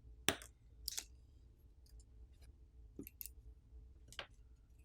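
Faint, scattered sharp clicks of small tools and phone parts being handled during a smartphone disassembly, about five in all.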